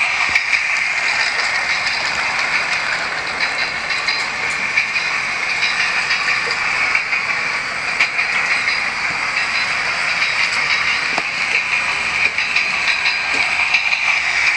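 Toy battery-powered steam-style train set running around its track: a steady hiss, from its steam sound effect and smoke unit or its motor and wheels, with a few faint small clicks.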